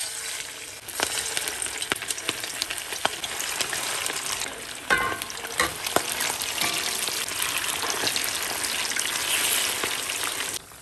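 Marinated chicken pieces deep-frying in hot oil in a stainless steel wok: a dense, steady sizzle and crackle that gets louder about a second in as more pieces go in. A few sharp clicks sound around the middle, and the sizzle stops abruptly near the end.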